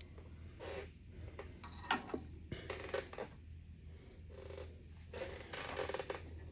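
Breaths close to the microphone, several short rushes of air, with a few small clicks of tools and parts being handled, over a low steady hum.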